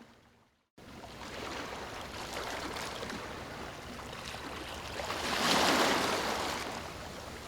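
Ocean waves washing on a shore, one wave swelling to its loudest a little past halfway and then easing off. The sound cuts out briefly at the very start before the surf fades back in.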